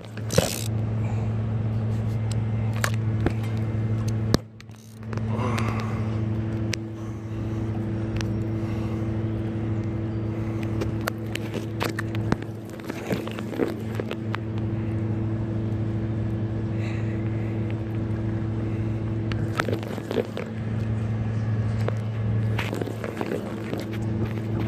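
Fast river current rushing under a steady low hum, with scattered clicks and scrapes of close handling. The hum dips out briefly about four seconds in.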